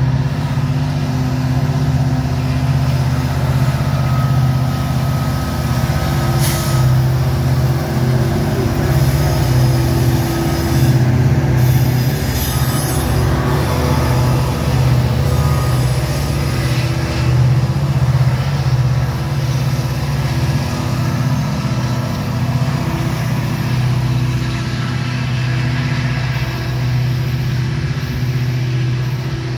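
Two diesel-electric helper locomotives shoving hard on the rear of a loaded coal train as they pass close by: a loud, steady diesel engine drone under heavy load, easing slightly near the end as they move away.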